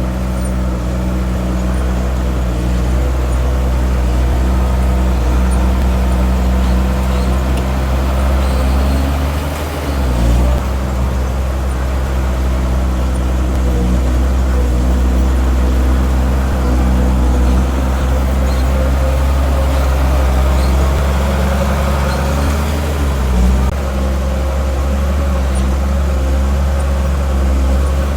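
Heavy earthmoving machine's diesel engine running steadily under load, with a deep low rumble. Its pitch dips briefly about ten seconds in and again about two-thirds of the way through.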